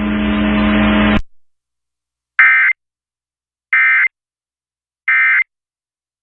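Three short bursts of EAS end-of-message (SAME) data tones, the harsh digital screech sent three times at even spacing, marking the end of the Amber Alert. Before them, a steady hum with background noise cuts off abruptly about a second in.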